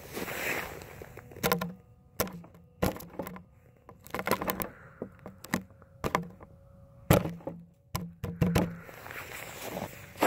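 Irregular clicks and knocks from a radio-controlled toy truck and the phone strapped to it, rattling as it sits and inches through snow, with a faint steady whine underneath.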